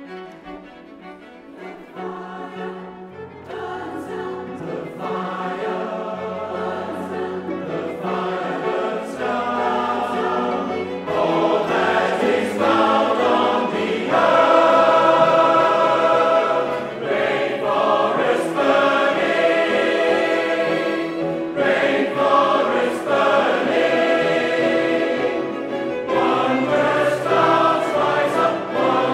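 Large choir singing with string accompaniment, with sustained low cello-range notes underneath. It starts soft and swells steadily, loudest about halfway through.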